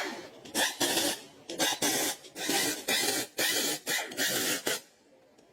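Rasping strokes of a hand tool worked back and forth, about two strokes a second, stopping near the end.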